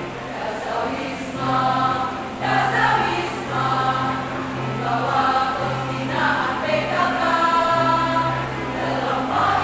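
A choir singing a song together, with phrases rising and falling over steady held low notes.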